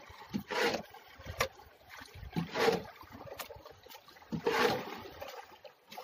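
Water splashing in a regular rhythm: a short splash about every two seconds, each with a dull knock just before it.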